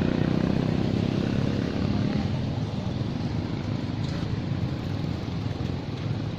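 A vehicle engine running steadily, fading away over the first two seconds, leaving a steady outdoor background hum.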